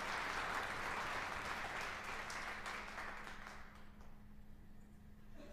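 Audience applauding, the clapping fading out about three and a half seconds in.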